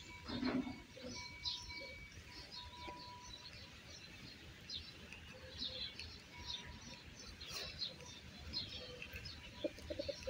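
Small birds chirping in the background: many quick, high chirps scattered throughout, with a brief louder low sound about half a second in.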